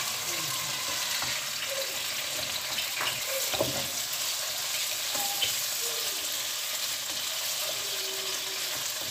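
Chicken leg pieces frying in a little oil in a nonstick wok, a steady sizzle, with the spatula knocking and scraping against the pan a few times about three seconds in as the pieces are moved.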